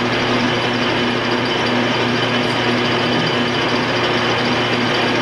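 Metal lathe running under power feed with a trepanning tool plunging into a spinning mild steel plate: a steady cutting noise over the even hum of the lathe's drive.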